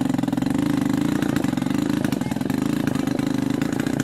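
Motorcycle engine of a Philippine tricycle (motorcycle with sidecar) running steadily with a rapid buzzing firing beat as the tricycle drives off.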